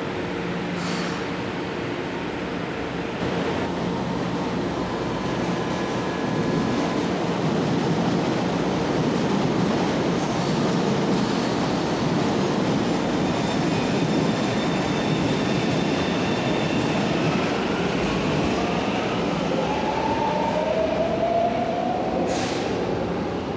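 São Paulo Metro train pulling out of the platform: a steady hum from the standing train gives way to a growing rumble of wheels and motors as it accelerates away, with a rising whine near the end.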